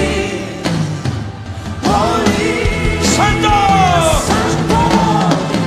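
Spontaneous worship music: a band playing, with a singing voice holding long, sliding notes from about two seconds in.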